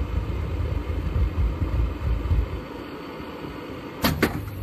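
Ferroli Silent K gas-oil burner running with a steady low hum. About four seconds in comes a sharp double bang as it fires with an explosion: the oil spray from the nozzle is not lighting properly, because air is leaking in through the fuel filter bowl's gasket.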